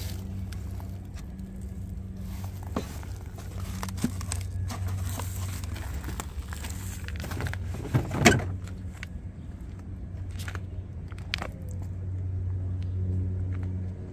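A steady low engine hum with scattered knocks, and a louder short clatter about eight seconds in.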